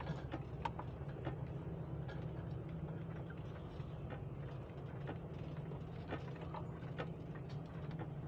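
Motorhome engine running steadily at low speed, a low even hum with scattered light clicks and rattles.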